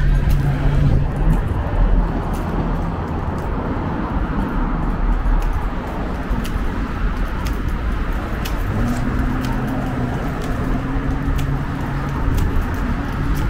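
Downtown street traffic: a steady wash of car noise with low rumble. In the second half a low, steady engine drone is added, with faint ticks about once a second throughout.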